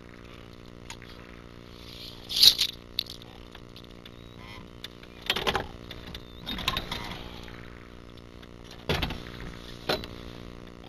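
A small motor running steadily, broken by five sudden loud noises. The loudest comes about two and a half seconds in, the others near the middle and toward the end.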